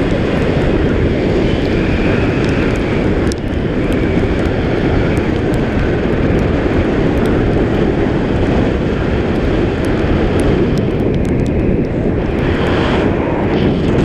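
Steady rush of wind buffeting an action camera's microphone in flight under a tandem paraglider.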